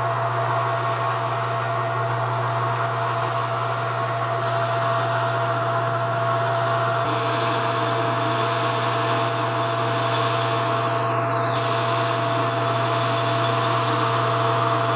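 Metal lathe running under power while drilling and then turning a metal nozzle part, a steady low motor hum with a constant whine above it and a hiss of cutting noise.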